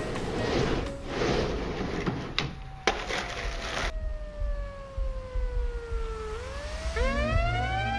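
Skateboard wheels rolling across a fiberglass pool shell, with a couple of sharp knocks from the board, cutting off suddenly. Then a pitched tone slides slowly down and is followed by two rising, swooping tones.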